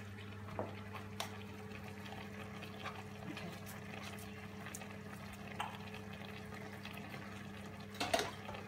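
Pans simmering quietly on the hob over a steady low hum, with a few light taps and clicks, the loudest about eight seconds in.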